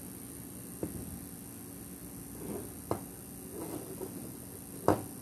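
Bare metal 18650 lithium-ion cell handled in the fingers and laid on a tabletop: three light knocks of the metal can against the surface, the last and loudest near the end, with soft rustling from the hands between them.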